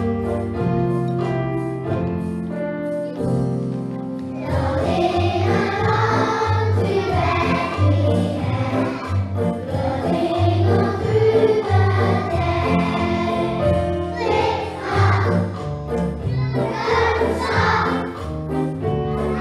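A Christmas song for the nativity, a backing track with plucked-string accompaniment. About four seconds in, a choir of young children starts singing along with it.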